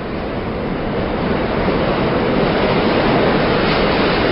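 Train running, a steady rumble that grows louder over the first couple of seconds.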